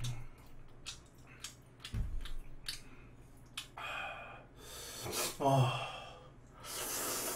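A man eating fiery Buldak spicy noodles: small mouth and chopstick clicks, a heavy sighing breath about four seconds in, a short voiced grunt, then a long noisy slurp of noodles near the end. The heavy breathing goes with the burn of the very spicy noodles.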